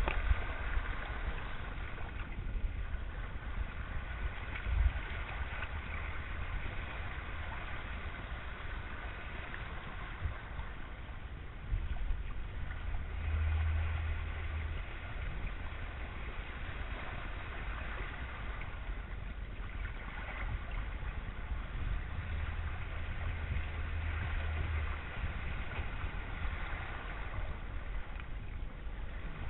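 Water rushing and splashing past the hulls of a Cross 18 trimaran under way, with a steady low rumble that swells twice.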